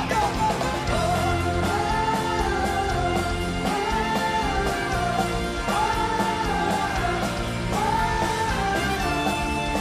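Live rock band playing, with voices singing a repeated "whoa, whoa, whoa-whoa" refrain about every two seconds over trumpets and electric guitar.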